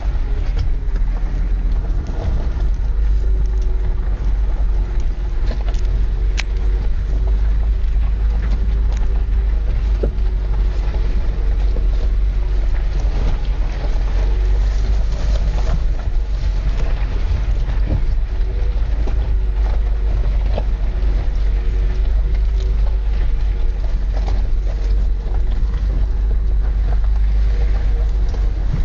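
Car driving slowly on a gravel road, heard from inside the cabin: a steady low rumble of engine and tyres with a faint wavering engine hum, and scattered clicks and rattles from the loose surface.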